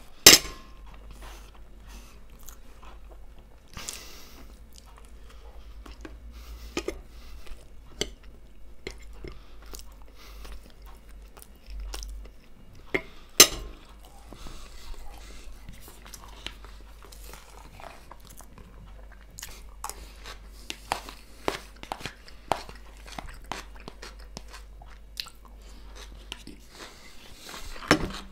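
Close-up chewing and crunching of fried potatoes and fresh tomato-cucumber salad, with scattered clicks of a metal fork on a china plate and a plastic bowl. Two sharp clinks stand out, one at the start and one about halfway through.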